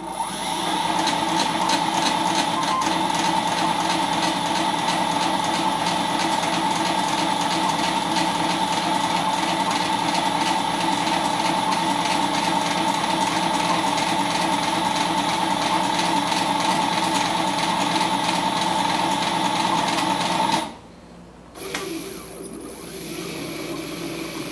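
The axis drive motors and lead screws of a CNC-converted Sakai ML-360 mini lathe rapid-traversing the carriage at full jog speed under Mach3. They make a steady mechanical whine of several tones for about twenty seconds. It cuts off abruptly, then a quieter run of the same kind follows briefly near the end.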